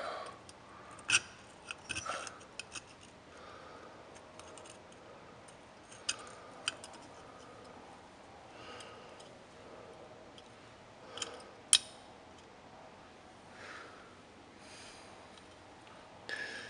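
Small steel parts of a Colt Single Action Army revolver clicking and tapping as they are fitted into the frame by hand: scattered sharp metallic clicks, a few close together, the loudest about twelve seconds in.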